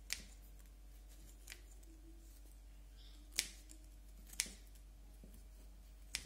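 Scissors snipping the stems and leaves of a mini bougainvillea bonsai: about five short, sharp snips a second or two apart, the two loudest near the middle.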